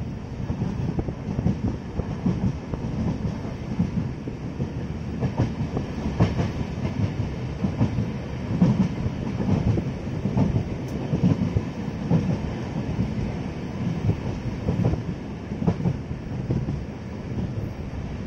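Train running along the track: a steady low rumble with wheels clicking over the rail joints, heard from inside a moving carriage.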